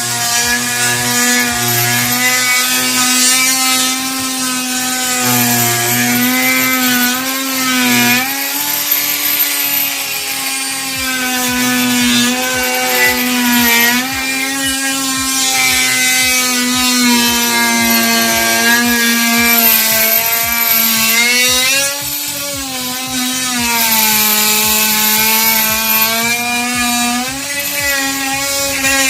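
Makita cordless oscillating multi-tool running with a Wellcut blade, cutting: a steady high buzz whose pitch dips and wavers every few seconds as the blade bites and is eased off.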